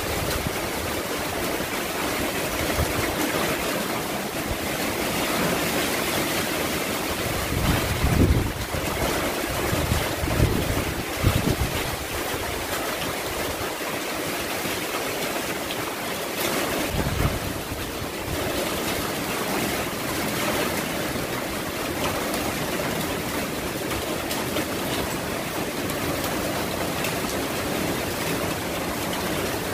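Typhoon wind and driving rain, a steady rushing noise, with strong gusts buffeting the microphone about 8, 10 to 11 and 17 seconds in.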